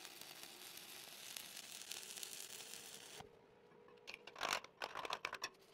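A 7018 stick-welding arc crackling faintly and steadily for about three seconds, then cutting off abruptly. A few short scraping strokes follow, a wire brush on the fresh weld and steel plate.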